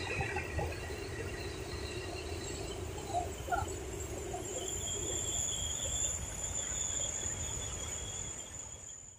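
Steady rush of water pouring over a dam's overflow weir, with a few short bird chirps in the middle and a thin, high, steady tone in the later part. The sound fades out near the end.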